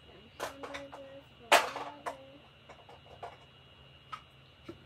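Clicks and knocks of bottles and a plastic dish-soap cap being handled on a table, with one louder knock about one and a half seconds in.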